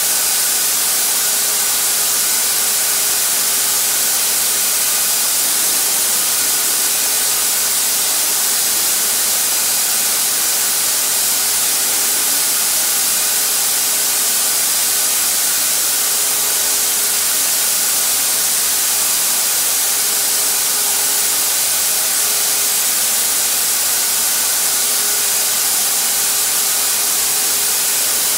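Harbor Freight HVLP turbine paint sprayer running steadily while paint is sprayed: a loud, even rush of air from the spray gun, with a faint steady whine from the turbine.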